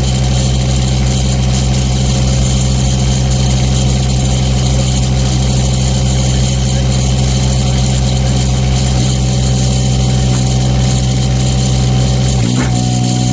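An engine running steadily at constant speed. A second, higher set of tones joins near the end.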